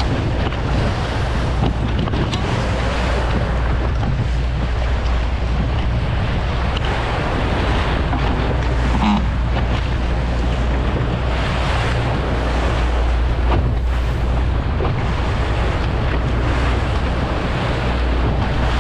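Boat engine droning steadily, with water rushing past the hull and wind buffeting the microphone.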